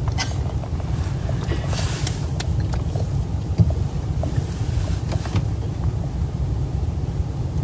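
Steady low rumble of wind buffeting a phone microphone, with a small knock about three and a half seconds in.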